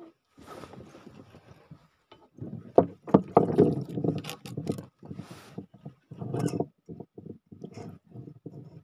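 Irregular knocks, scrapes and rustles of fishing gear being handled in a wooden boat as a hook is baited, with the loudest clatter about three to five seconds in.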